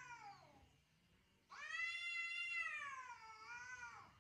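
Domestic cat yowling at another cat in a face-off, the aggressive warning call of a cat fight: the end of one long yowl sliding down in pitch, then after about a second's pause another long yowl that holds its pitch, then falls and wavers before cutting off.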